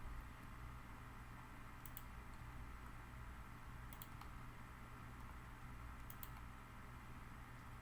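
Faint computer mouse clicks, three quick double clicks about two seconds apart, over a steady low electrical hum.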